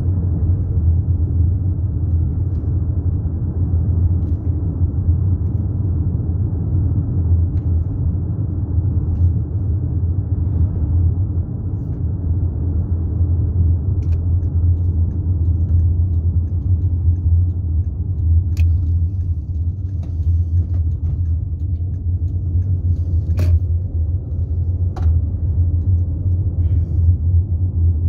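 Car driving at low speed, heard from inside the cabin: a steady low rumble of engine and road noise, with a few sharp clicks about two-thirds of the way through.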